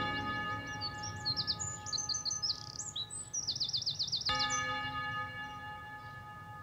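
Bird chirps and a fast, even trill over the soundtrack's ambient music: bell-like tones with several overtones that are struck again about four seconds in and slowly fade away.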